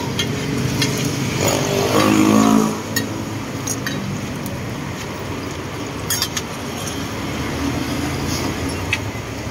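Roti frying in margarine on a flat steel griddle, a steady sizzle, with a few sharp clicks of a metal spatula against the pan. A motor vehicle engine passes about two seconds in, rising and falling in pitch, the loudest sound.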